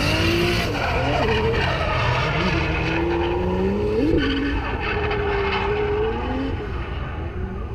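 Two drift cars running a tandem: their engines rev up and down as they slide through the corners, over a steady hiss of skidding tyres. One engine note jumps sharply and drops back about four seconds in.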